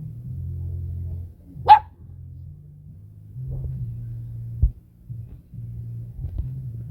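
A dog gives one short, sharp bark nearly two seconds in, over a steady low hum. A dull low thump follows a few seconds later.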